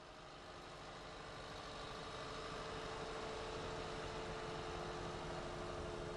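Diesel engine of a mobile crane running with a steady whine over it, growing louder over the first couple of seconds and then holding steady.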